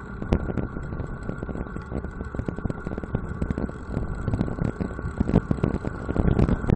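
Wind buffeting the microphone of a small camera mounted on a road bicycle while riding, mixed with road rumble and frequent small knocks and rattles from the camera mount.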